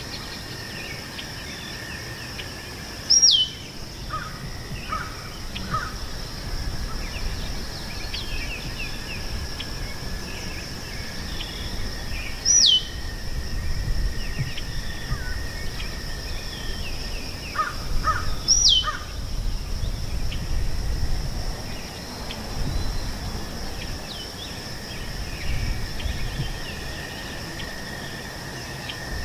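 Meadow ambience: insects trill steadily at two pitches, one high and one lower. A bird gives a loud, short, sharply falling whistle three times, about 3, 12 and 18 seconds in. Other birds chirp softly among them, over an uneven low rumble.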